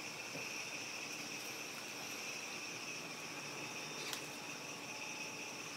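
Steady, high-pitched chorus of night insects chirping without a break, with one faint click about four seconds in.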